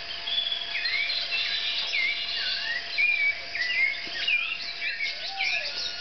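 Morning chorus of several tropical birds singing and calling at once: overlapping whistles, chirps and slurred rising and falling notes. A lower looping whistled call joins near the end, over a faint steady tone.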